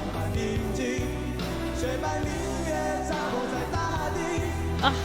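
Live rock band performance with a raw male lead vocal singing over a steady bass line. There is a brief loud accent near the end.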